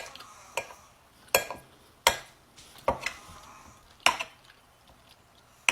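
Utensils clinking against a plate or bowl while eating: about half a dozen sharp, separate clinks, irregularly spaced roughly a second apart.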